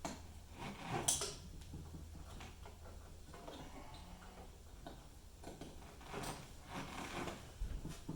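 Car wiring harness and its connectors being handled: scattered light clicks and rustling over a faint low hum, with one sharper click about a second in and busier handling near the end.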